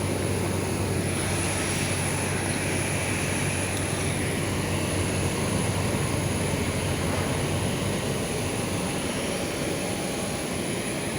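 Passenger airliner's jet engines running, a steady, unchanging noise with a low hum underneath and a faint high whine.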